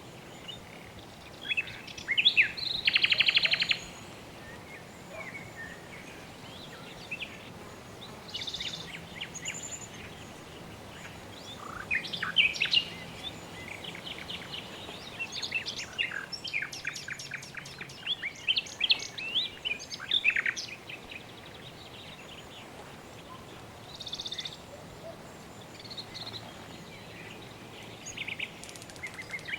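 Birds calling and chirping over a faint steady hiss, with a loud rapid trill about three seconds in and clusters of quick chirps through the middle.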